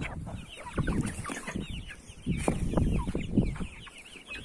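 A flock of young chickens clucking as they feed, many short calls overlapping, over some low rumbling on the microphone.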